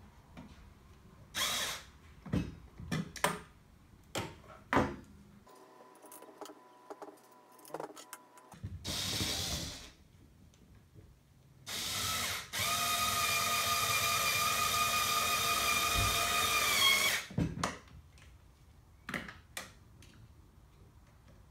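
Cordless driver tightening M3 screws into a printed bearing housing. A few clicks and knocks come first, then a short burst of the motor, then about five seconds of steady motor whine that dips slightly in pitch as it stops, followed by a few more clicks.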